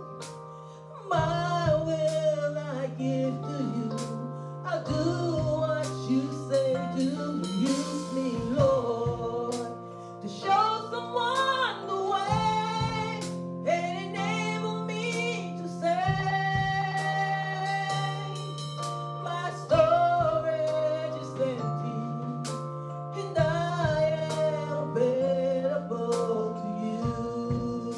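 Gospel song: a woman singing a melody over instrumental accompaniment with steady bass notes.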